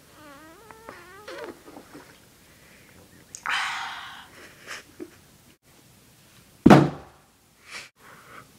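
A boy's voice wavering up and down while he drinks, then a harsh open-mouthed yell a few seconds in, and a loud thump near the end.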